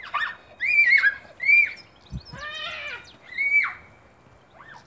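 Playful high-pitched squeals and shrieks, about five short ones rising and falling in pitch, with a dull thump about two seconds in.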